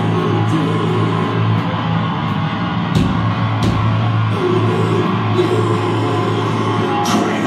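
Heavy metal band playing live through stage amplifiers: distorted electric guitars over a held low note, with drum and cymbal hits standing out about three seconds in and again near the end.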